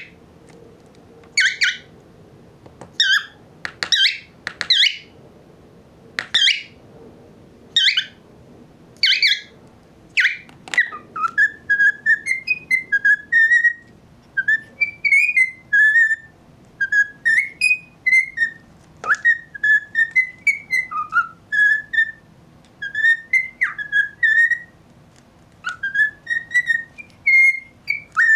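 Male cockatiel calling and singing. It opens with a series of loud, sharp calls about once a second, then some ten seconds in breaks into a warbling whistled song of short rising and falling notes, repeated in phrases.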